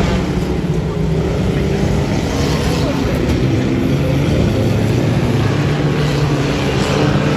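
Engines of Reliant Robin three-wheeler banger racers running around the track, a loud, steady drone, with voices mixed in.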